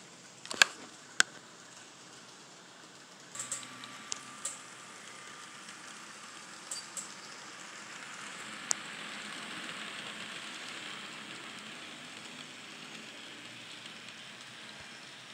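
N scale model trains running on the layout's track: a steady hissing rattle of small wheels and motors that swells about eight seconds in as an Amtrak train passes close. A few sharp clicks come in the first seconds, the loudest two near the start.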